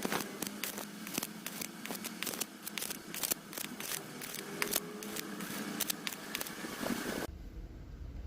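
Stick-welding arc from a DC inverter welder with a 1.6 mm electrode, crackling and popping irregularly on thin sheet metal. It stops abruptly about seven seconds in, giving way to a low hum.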